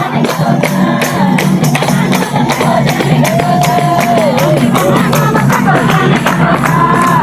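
Loud Nepali Teej festival music: a singing voice over a quick, steady percussion beat with jingling, tambourine-like strokes.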